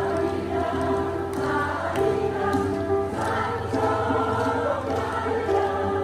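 Senior choir of mostly women singing together in long held notes that change about every second.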